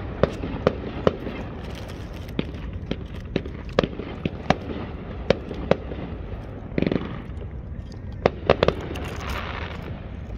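Fireworks going off across the water: a dozen or more sharp pops at irregular intervals over a steady low rumble.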